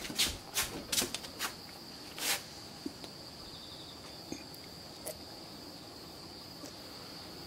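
An insect shrilling steadily on one high note. A few light taps or knocks come in the first two seconds or so.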